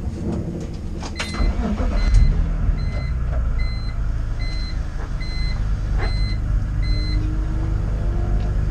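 A car engine starting about a second in, then running with a steady low rumble. An electronic warning chime beeps about every two-thirds of a second until about seven seconds in.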